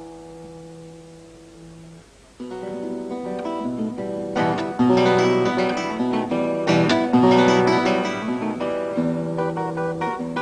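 Acoustic guitar music: a held chord dies away, then after a short pause quick strummed chords start up and build louder.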